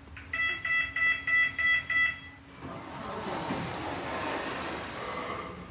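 Lift beeper sounding about six short, rapid electronic beeps, followed by a couple of seconds of steady rushing noise.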